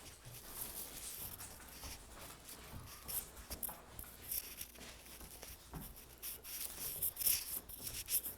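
Faint scuffling and rustling with scattered light taps from a puppy moving about at play, a little louder near the end.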